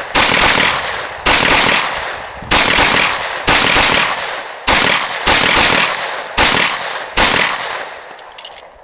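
Grand Power K100 pistol firing eight shots at a steady pace, about one a second, each shot followed by a long echoing decay.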